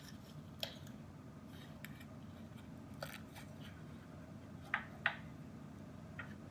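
Slime being squeezed and pressed, giving off scattered sharp crackling pops as trapped air snaps: about half a dozen, the loudest two in quick succession late on.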